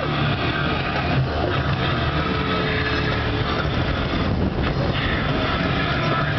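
Motorboat engine running steadily at speed, with a constant rush of wind and water.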